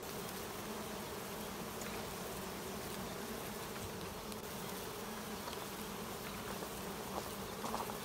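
Honey bees buzzing around a hive entrance: a steady, low hum of many wingbeats.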